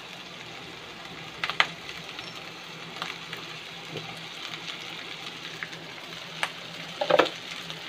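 Gentle, steady sizzling of boiled rice and vegetables frying in a non-stick pan, with a few sharp clicks and knocks of a steel spoon against the pan, the loudest cluster about seven seconds in.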